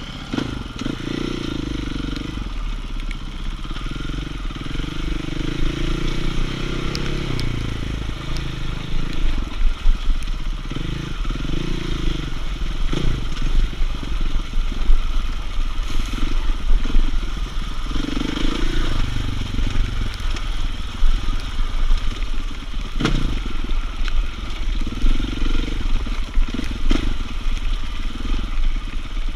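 Enduro motorcycle engine running on a rocky trail, revving up and down with the throttle, with heavy low rumble on the microphone. A few sharp knocks and rattles come from the bike riding over stones.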